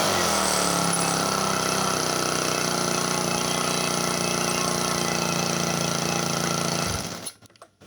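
Small four-stroke grass cutter engine falls from high revs to a steady idle, then is switched off about seven seconds in and dies abruptly. It is running again after carbon was cleaned from its piston to cure hard starting.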